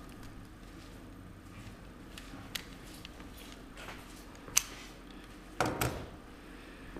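Quiet room tone with a few scattered light clicks, and a short knocking clatter about five and a half seconds in.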